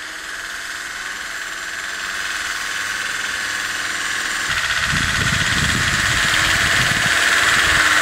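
Land Rover Defender fitted with snow chains, its engine running as it drives through deep snow, growing steadily louder as it comes closer. From about halfway a low, uneven rumble joins in.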